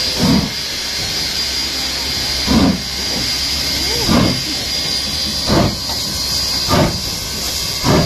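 Steam locomotive 3801, a 4-6-2, getting under way. Its exhaust beats come slowly, about one every second and a half and drawing closer together as it picks up speed, over a steady hiss of steam escaping from the open cylinder drain cocks.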